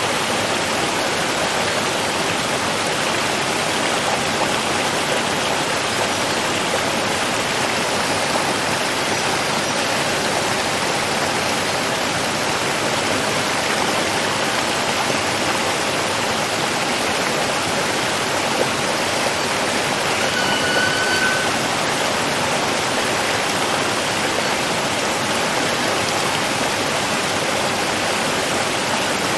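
Running water rushing steadily, an even unbroken flow with no change in level.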